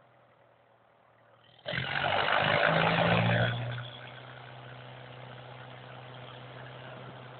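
An old engine starts suddenly, runs loud for about two seconds, then settles to a steady idle.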